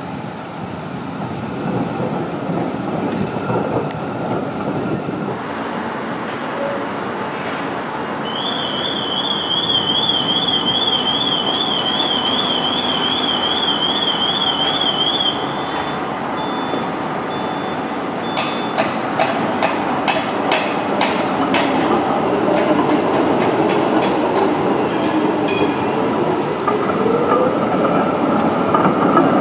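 Street-running articulated trams: steady rolling noise of a tram and city traffic, with an electronic warbling tone for several seconds mid-way. Later a tram runs through the junction, its wheels giving a quick run of sharp clicks over the track points and crossings, and the rolling noise grows louder near the end as the tram comes close on the curve.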